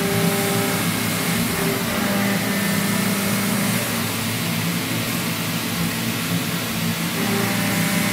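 Combimaster round-insert milling cutter roughing 42CrMo4 alloy steel: a steady, even machining noise of the spinning cutter in the cut, with a low hum and short faint tones that come and go.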